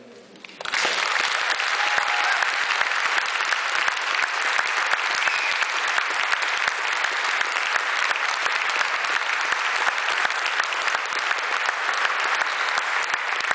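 Audience applause starting suddenly about a second in and continuing steadily: many hands clapping.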